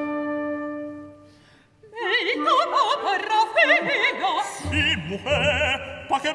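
Symphony orchestra holding a chord that fades away. After a brief hush, an operatic voice comes in about two seconds in, singing with wide vibrato over the orchestra, and the low strings rejoin partway through.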